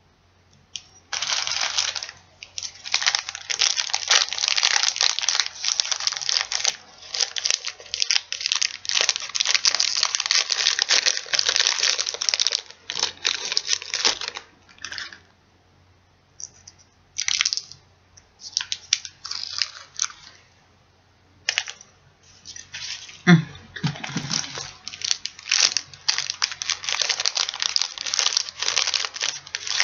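Reese's Peanut Butter Cups wrappers crinkling and tearing as they are handled and opened by hand, in long stretches broken by quieter pauses in the middle. About 23 seconds in, a brief vocal sound stands out.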